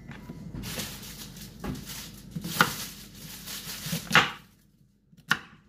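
Large kitchen knife cutting cassava on a cutting board: scraping cuts through the root with sharp knocks of the blade on the board, the loudest about four seconds in, then a short pause and one more knock near the end.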